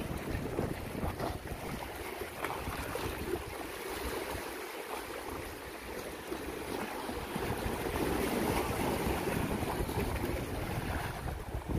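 Small sea waves washing and lapping over shoreline rocks, with wind rumbling on the microphone. The wash eases about four seconds in and swells again later.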